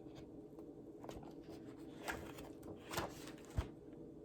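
Faint handling noise from a picture book: a few short paper rustles as the pages are handled, and a light thump about three and a half seconds in.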